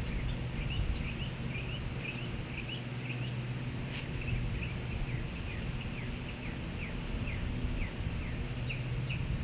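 A bird chirping over and over: short, high, falling chirps, a few each second, over a steady low hum. A single sharp click comes about four seconds in.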